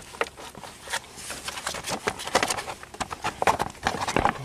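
Irregular clicks, taps and rubbing as gloved hands handle the plastic air intake and wiring harness under a car's hood, growing busier in the second half.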